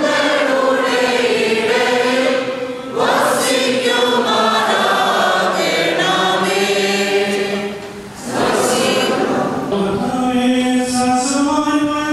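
A church choir of women's and boys' voices singing together, with long held notes and two brief pauses for breath, about three and eight seconds in.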